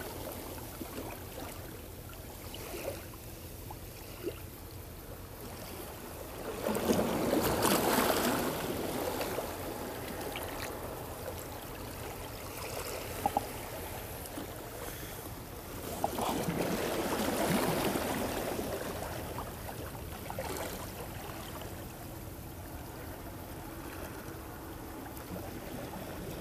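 Small waves washing against the stone seawall over a steady water noise, with two louder surges of a few seconds each, about seven and sixteen seconds in, and a few faint clicks.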